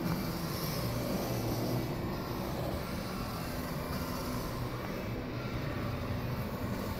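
Steady background noise of a large exhibition hall: a continuous low hum and rumble with no distinct events.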